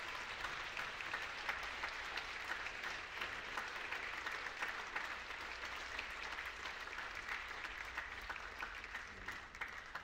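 Audience applauding: dense, steady clapping that dies down near the end.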